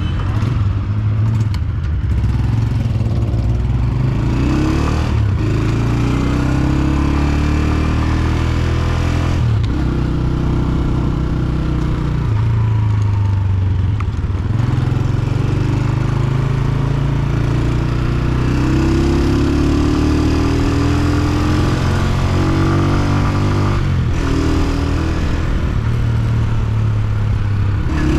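Honda CG125's single-cylinder four-stroke engine running under way. The pitch climbs and then drops sharply several times, about 5, 9, 14 and 24 seconds in, as the rider shifts up through the gears.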